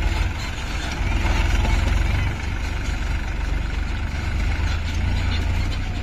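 Mahindra 575 tractor's diesel engine running steadily as it pulls a loaded trailer of mud away. It gets a little quieter about two seconds in.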